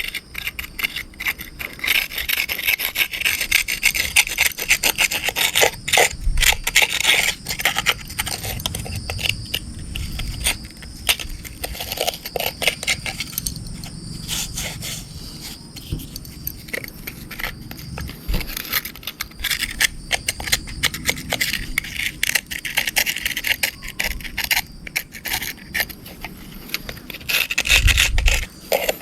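Rapid, repeated rubbing and scraping strokes as caked mud is scrubbed off an RC car, with a few low thuds along the way.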